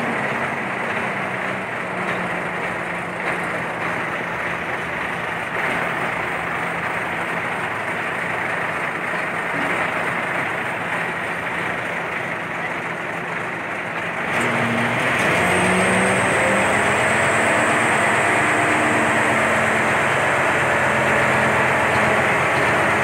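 Mobile crane's diesel engine running steadily, then revving up and running louder from about 14 seconds in as the operator works the controls.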